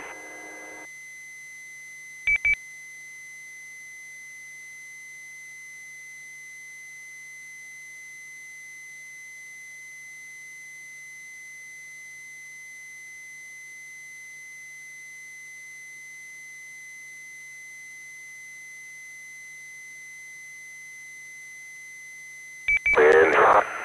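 A steady high-pitched tone with a faint low hum beneath it, heard through an amateur radio feed between transmissions. A short beep-like burst comes about two seconds in, and radio speech starts near the end.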